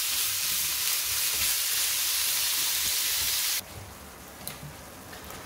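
Minced meat frying in vegetable oil in a skillet, sizzling steadily as it browns. The sizzle cuts off abruptly about three and a half seconds in, leaving a faint background with a few light clicks.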